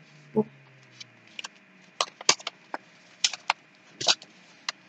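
Paper notebook and pen being handled: a few short, irregular scratches and taps.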